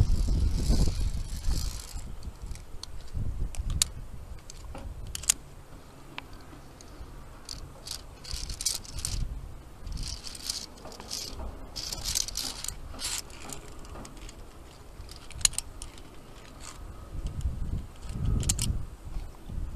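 Via ferrata climbing gear: metal carabiners and lanyard clicking and rattling against the steel safety cable, with scuffing and scraping against the rock in a cluster of bursts midway. Low rumbles of wind on the camera microphone come at the start and again near the end.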